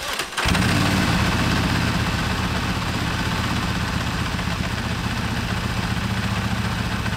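Motus MST sport-touring motorcycle's 1650 cc pushrod V4 engine starting. It catches about half a second in, then settles into a steady idle.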